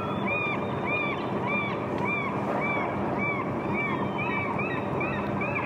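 Gulls calling over and over, short rise-and-fall cries about two a second, several birds overlapping near the end, over the steady low hum of a boat's engine.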